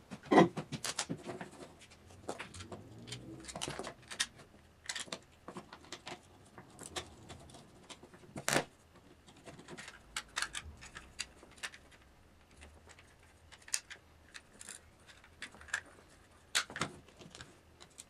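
Hands handling and fitting the blue plastic housing parts of a desoldering gun on a wooden board: scattered clicks, taps and knocks, the sharpest about half a second in, at about eight and a half seconds and near the end.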